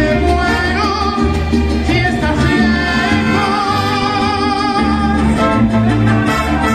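Live mariachi band playing: violins and trumpets carry the melody over a harp and a deep plucked bass line.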